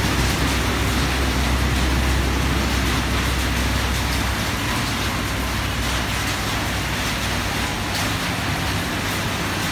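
Street traffic on a wet road: a steady hiss of rain and tyres on wet tarmac, with a low engine rumble from a passing vehicle that drops away about four seconds in.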